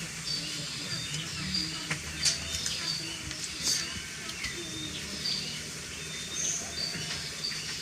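Small birds chirping over and over in short, high, falling calls, with a few sharp clicks in between.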